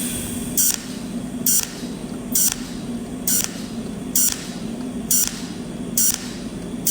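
Welding arc on square tubing struck in short, regular bursts, about one a second, laying a row of tack welds one after another; each burst is a brief high hiss over a steady low machine hum.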